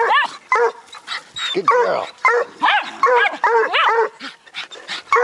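A bluetick coonhound pup and a Jack Russell terrier barking rapidly at a raccoon caught in a live trap, short pitched barks coming about three a second.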